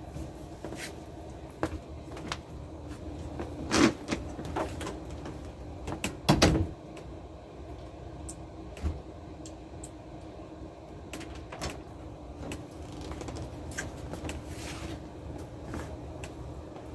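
Scattered household knocks and thumps over a steady low hum, with the two loudest thumps about four and six and a half seconds in.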